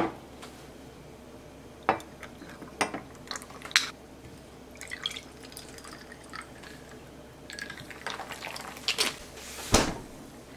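Carbonated water poured from a plastic bottle over ice into a glass of whisky for a highball, with light clinks and ticks of ice against the glass. A louder knock of the glass comes near the end.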